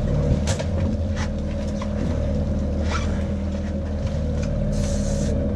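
Boat's outboard motor running steadily at trolling speed, a constant low drone, with a few light knocks.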